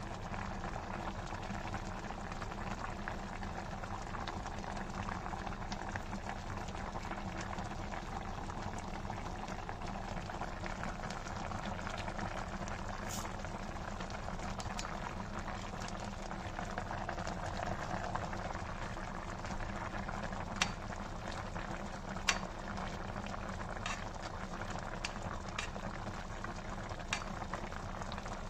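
Fish soup of salmon and vegetables simmering in a stainless steel pot: a steady bubbling hiss, with a few sharp clicks in the second half.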